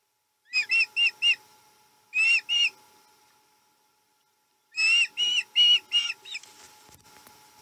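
Osprey calling a series of short, high, whistled chirps in three bouts: four quick notes, then two, then about six that trail off near the end.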